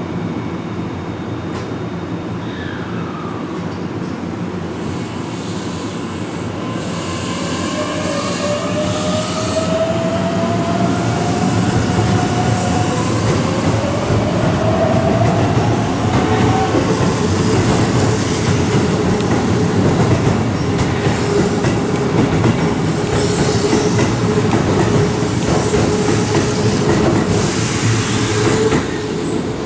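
Keihan 7000 series electric train pulling out of the platform: a whine that rises in pitch as it picks up speed, over a rumble of wheels on rail that grows louder as the cars pass close by, settling into a steady hum in the later part.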